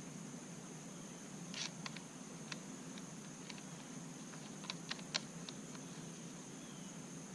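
Trimmer head parts and adapter nuts being handled and fitted: a handful of small, irregular clicks and taps, over a steady faint high-pitched whine.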